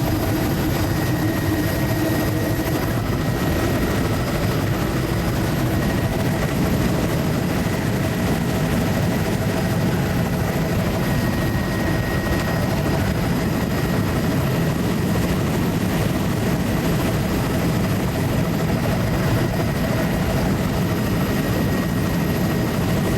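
Steady drone of a survey aircraft cruising low and level, its engine and airframe noise heard from inside the cabin: an even rumble with a few constant tones riding on it.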